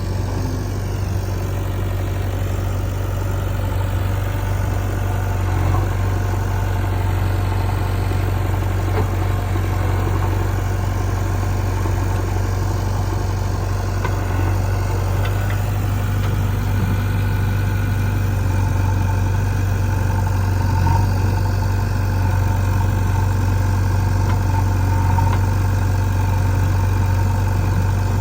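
Heavy diesel engine running steadily, a low even hum without revving.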